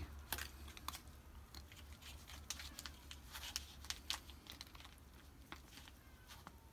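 Cat eating dry kibble from a trough: faint, irregular crisp crunches as it chews.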